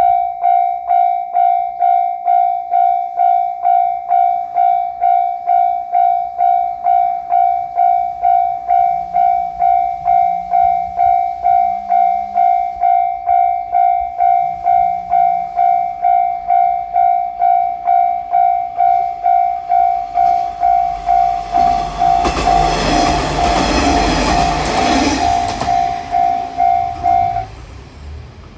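Japanese level-crossing warning bell ringing steadily at about two strikes a second as a JR Shikoku 1500-series diesel railcar passes through the crossing. The railcar is loudest from about two-thirds of the way in. The bell cuts off about a second before the end, leaving the railcar's fading engine.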